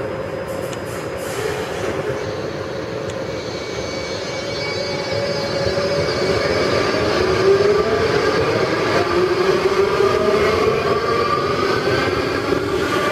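Four-car Budd-built Baltimore Metro Subway train pulling out of an underground station: its traction motors whine, rising in pitch as it gathers speed, over a steady wheel and rail rumble. The sound grows louder about six seconds in.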